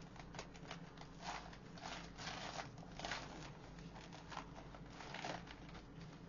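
Crinkling and rustling of thin plastic vinyl as a deflated inflatable toy is unfolded and handled, in several irregular bursts.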